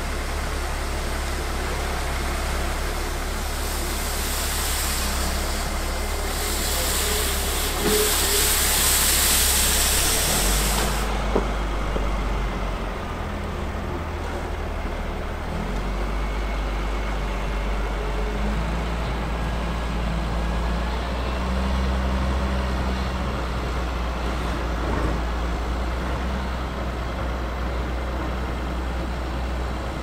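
Heavy snow-clearing machine's diesel engine running steadily, its low note shifting a few times, with a loud hiss for several seconds near the start that cuts off sharply about eleven seconds in.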